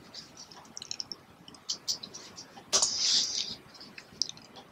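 Computer keyboard typing: scattered light keystrokes, with a short breathy hiss about three seconds in.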